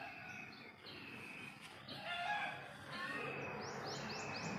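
Birds calling: scattered chirps and a rooster crowing, then near the end a quick run of about six high, rising notes.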